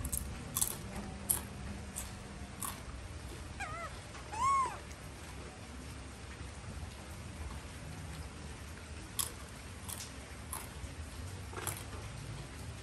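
Pet monkeys in a wire cage, with scattered sharp clicks and knocks as they handle and eat bananas. About four and a half seconds in there is a short squeal that rises and falls, just after a brief warbling call.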